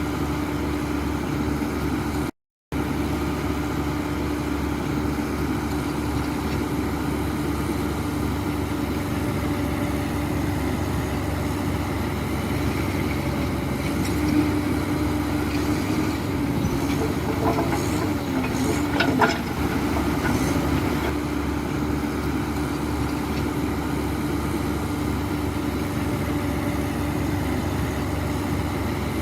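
Heavy diesel earthmoving machinery running steadily with a constant low hum. The sound cuts out very briefly about two and a half seconds in, and a few sharp, high-pitched clicks and squeaks come about two-thirds of the way through.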